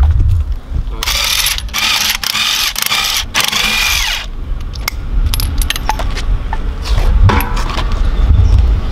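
Hiss of a spray can sprayed at a car wheel in three close bursts lasting about three seconds in all, followed by light metal clinks of lug nuts and tools as the wheel is worked off, over a steady low rumble.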